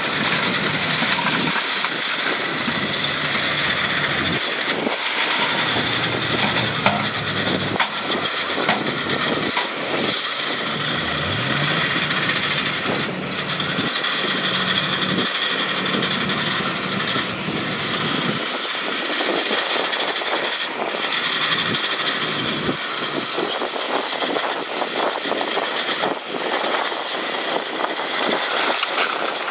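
Diesel engines of heavy earthmoving machinery running steadily as they work, with a few brief knocks.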